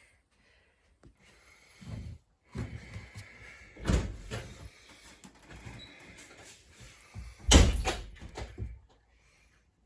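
Indoor knocks and bumps of handling, with two louder bangs, the loudest near the end, like a door or cupboard being moved or shut.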